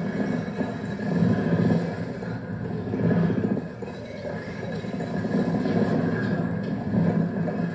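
Tape-loop soundscape from cassette Walkmans mixed together: a dense, low, murky drone that swells and fades every second or two, with faint steady tones above it.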